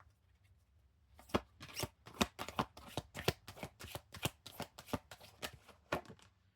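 A deck of oracle cards being shuffled by hand: a quick run of crisp card flicks and taps, several a second, starting about a second in.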